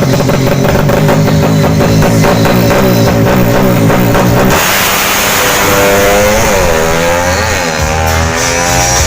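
Background rock-style music with a steady beat, changing abruptly to a different section about halfway through.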